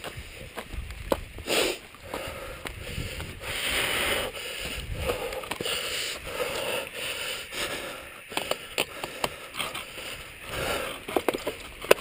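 Mountain bike being mounted and ridden off along a dirt trail: tyres crunching over loose dirt, with sharp clicks and rattles from the bike that come thicker in the second half, and short hissing rushes.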